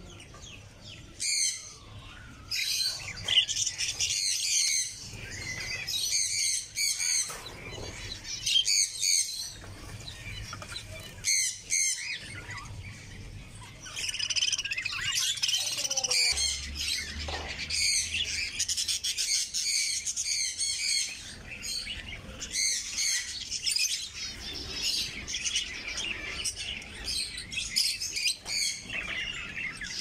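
Caged small birds chirping in quick, high-pitched calls: finches at first, then budgerigars chattering almost without a break from about halfway through.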